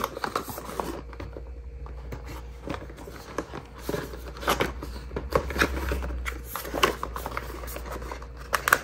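Cardboard packaging being handled: a white cardboard insert lifted and moved inside a product box, with scattered light taps, scrapes and rustles.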